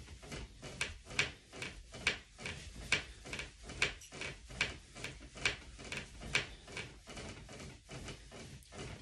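Push-ups on a mattress: a steady rhythm of sharp breaths and bedding noise, with a louder stroke a little under once a second and softer ones between.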